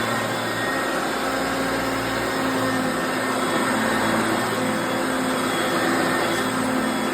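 1980 Hoover Concept One self-propelled upright vacuum cleaner running, a steady motor hum over a wide rushing noise.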